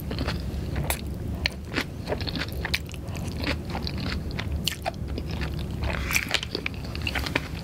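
Close-miked chewing of curry pad thai noodles, with many short wet mouth clicks and smacks over a steady low hum.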